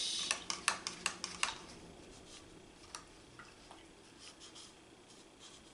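A paintbrush being rinsed in a cup of water: a quick run of clicks as the brush taps against the container in the first second and a half, then a few faint taps.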